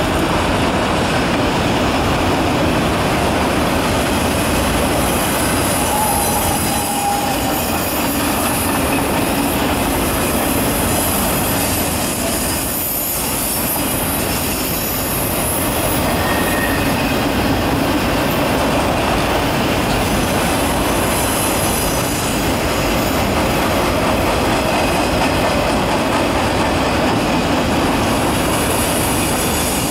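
Norfolk Southern freight train's autorack cars rolling past with a steady, loud noise of steel wheels on rail. Twice there is a brief wheel squeal, about a quarter of the way in and near the middle.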